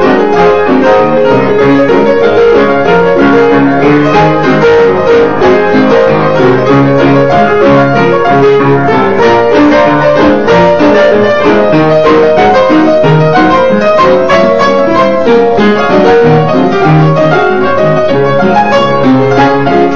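Several pianos, a grand and an upright among them, playing a ragtime piece together in a steady, unbroken stream of notes.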